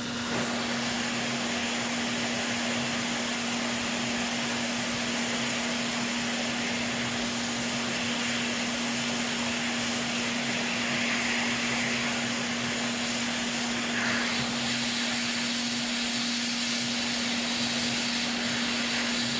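Vacuum desoldering tool's suction pump running steadily with a continuous hiss, drawing molten solder out of a PS4 HDMI port's through-holes.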